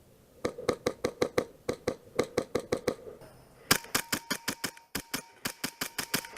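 Airsoft guns firing rapid single shots, about five or six a second: one string of about fourteen shots, then after a short pause a second, sharper string of about fifteen with a faint high whine under it.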